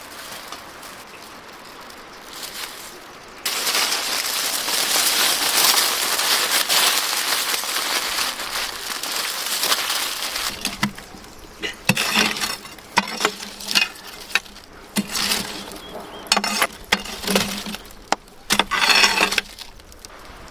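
Aluminium foil crinkling as it is wrapped and squeezed by hand around meat. A long stretch of continuous rustling gives way, about ten seconds in, to a series of short, sharp crumples.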